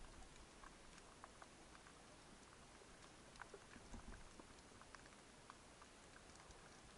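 Faint underwater ambience of a shallow rocky seabed: scattered, irregular small clicks and crackles over a low hiss.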